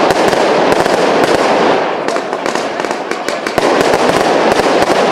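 Fireworks cake firing a rapid barrage of shots: dense crackling with many sharp bangs. It is loudest at the start, eases off a little after about two seconds, and surges again at about three and a half seconds.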